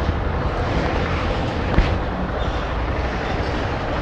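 Honda CG Fan 160 single-cylinder motorcycle engine running at low speed, mixed with wind noise, with a short knock about two seconds in. The engine's valves have too much clearance, the cause of the noise the owner is bringing it in for.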